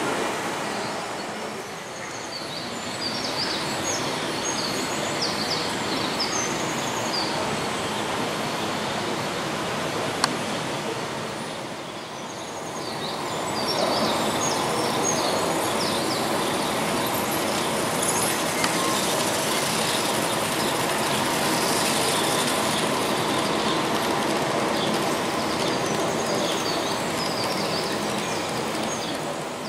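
Märklin HO-scale AC model trains running on the layout: a steady running noise of wheels on track, with short high squeaks scattered through it. The sound dips twice, and a single sharp click comes about ten seconds in.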